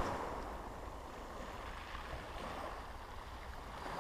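Wind rumbling on the microphone, with a soft, even hiss of small waves on a shingle beach.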